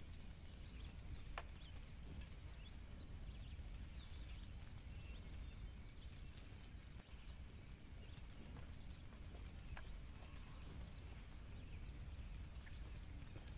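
Faint outdoor ambience: a steady low rumble, a short run of faint high chirps about three seconds in, and a couple of soft clicks.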